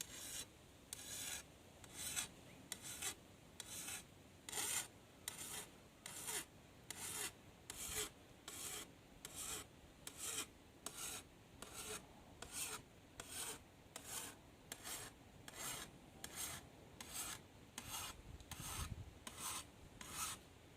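A hand file rasping along the steel edge of a cane knife in steady, even strokes, about two a second, sharpening the blade.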